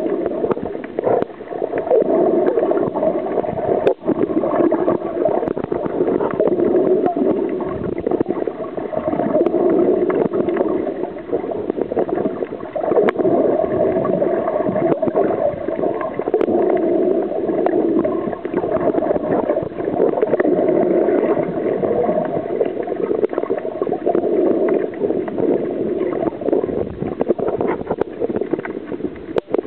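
Muffled underwater water noise picked up by a submerged camera: a steady, dense rush with frequent small clicks and crackles.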